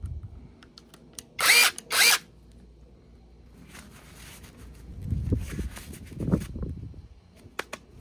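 Hyoja 21 V cordless electric chainsaw with an 8-inch bar: the chain runs in two short bursts about a second and a half in, then runs again lower and rougher for about two seconds in the middle, as it cuts into wood.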